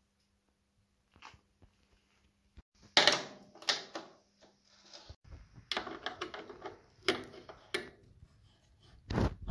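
Metal clinks and knocks of an adjustable wrench working a nut on a bolt against a wooden bench. They come in several short bunches, loudest about three seconds in.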